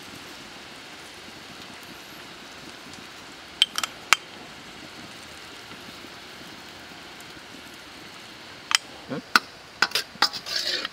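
Cooking utensils clinking against a small bowl and an aluminium pot: three sharp clinks about four seconds in, then a quicker run of clinks and knocks near the end, over a steady hiss.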